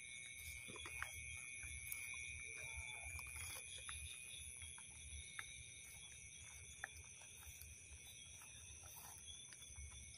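A faint, steady chorus of night insects trilling at several high pitches, over a low rumble and scattered small crackles of footsteps through dry grass.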